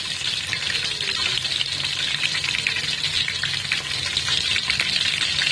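Green chillies with cumin and mustard seeds sizzling steadily in hot oil in a metal pot, with a dense crackle running through the hiss: the tadka (tempering) stage.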